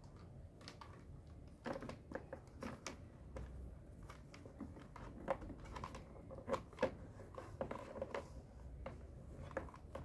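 Faint, irregular clicks and rustles of a cable being wound by hand around the plastic hooks of an electric pressure washer.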